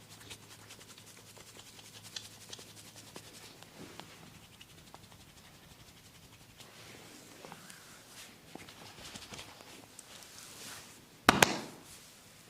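Hands working over hair and skin in a barber's head massage: soft rubbing with faint scratchy ticks and crackles. About eleven seconds in come two loud, sharp strokes in quick succession.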